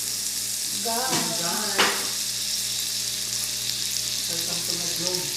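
Fried rice sizzling in butter in a pan while it is stirred, with a steady hiss and one sharp clink of the utensil against the pan about two seconds in.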